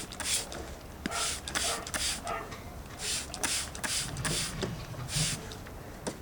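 A dog snapping and gulping at a stream of water, with short bursts of splashing and spraying that come in irregular clusters of two or three.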